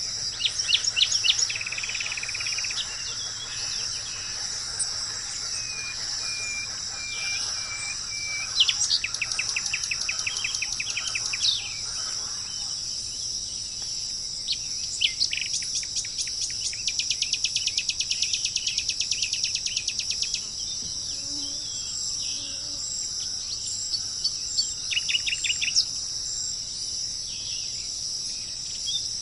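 Songbirds chirping and singing in rapid trills and short repeated notes, over a steady high-pitched drone of insects.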